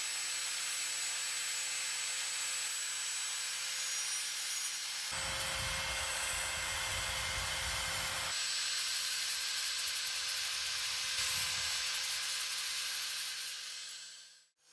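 Power tool spinning a 60-grit sandpaper disc against rusty steel, a steady abrasive hiss with a steady motor tone underneath. The sanding gets heavier, with a low rumble, for a few seconds midway, and the sound cuts off suddenly just before the end.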